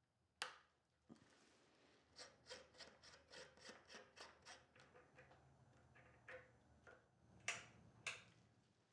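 Hand strokes rubbing on wood, like sanding or filing, a quick regular run of about four strokes a second that then slows to scattered strokes. A sharp click sounds just after the start, and two louder sharp knocks come near the end.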